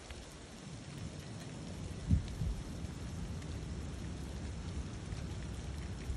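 Steady noise of wet snow falling, with a low rumble of wind on the microphone and one short low thump about two seconds in.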